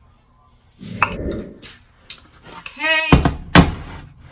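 Kitchen clatter as a speckled enamel roasting pan and a food-processor bowl are handled on the stovetop: a scrape and clatter about a second in, then a short squeak and two sharp knocks about three seconds in.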